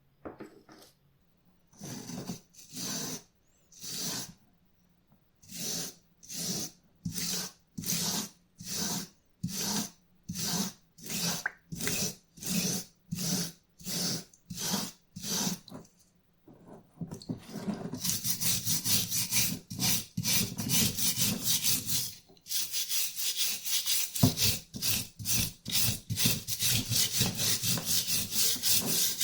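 Hand-held abrasive scraping the rusty steel of old wire cutters to remove the rust. Separate strokes come at a little under two a second, then from about halfway through they turn into fast, nearly continuous back-and-forth scrubbing, with a short break a few seconds later.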